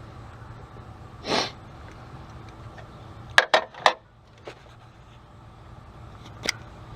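Handling noises during battery terminal work: a short breathy sniff about a second in, then a quick run of three sharp clicks in the middle and two single clicks later, as the terminal tool and the corroded cable clamps are handled.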